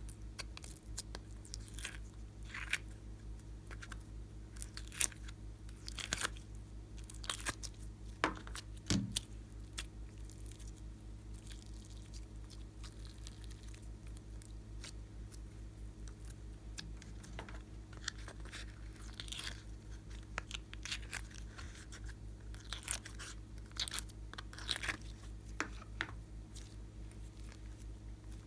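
Clear slime being squeezed and worked by hand, giving irregular sharp crackles, clicks and pops, over a steady low electrical hum.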